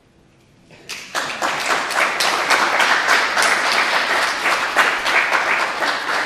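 Audience applause, starting about a second in and continuing steadily as dense, many-handed clapping.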